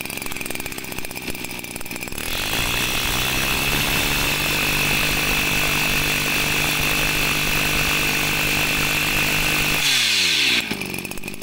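Mitsubishi TL20 20cc two-stroke brush cutter engine idling, then revved up about two seconds in and held at high speed, dropping back to idle near the end.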